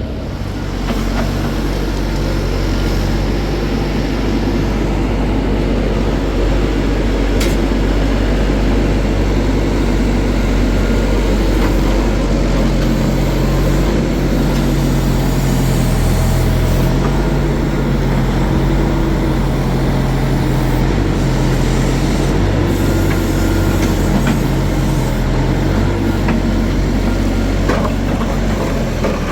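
Motor vehicle engine running steadily, its low hum stepping up and down in pitch now and then.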